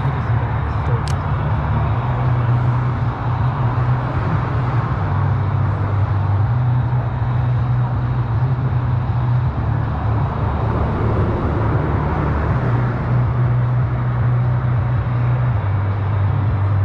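Steady rumble and tyre roar of traffic crossing the concrete highway bridge directly overhead.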